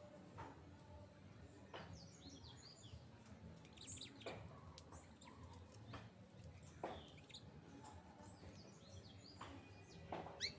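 Birds chirping faintly: short, sharp calls at irregular intervals, some sweeping quickly in pitch, over a low steady background rumble.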